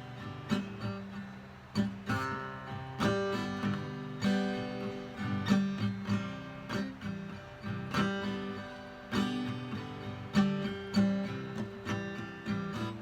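Acoustic guitar strumming chords: the instrumental introduction to a song, before the vocals come in.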